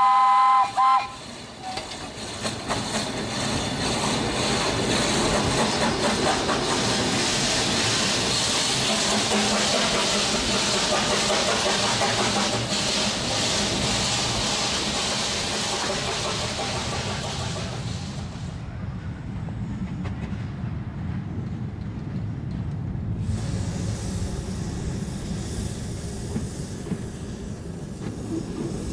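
1935 Orenstein & Koppel 0-4-0 narrow-gauge steam locomotive running. Its steam whistle cuts off about a second in, then steady steam hiss with exhaust and rail noise. The hiss drops away for a few seconds past the middle, leaving a lower rumble of the running locomotive.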